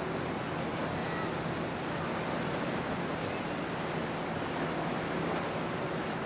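Steady rush of water and wind with a faint low hum underneath.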